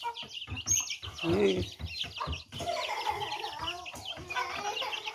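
Hens clucking and chicks peeping in short high chirps while the flock feeds on scattered food.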